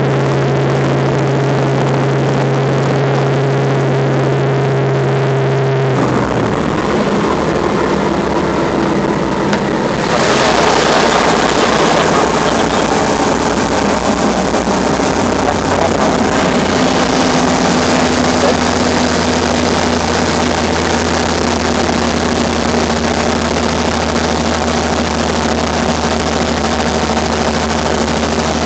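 Robinson R44 Raven II helicopter's six-cylinder Lycoming piston engine and rotors running, heard inside the cabin as a loud steady drone. The pitch of the drone shifts about six seconds in, and the sound turns brighter and noisier about ten seconds in.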